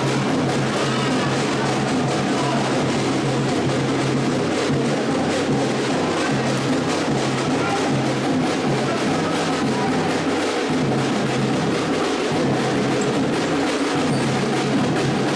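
Music with a drum kit and a bass line.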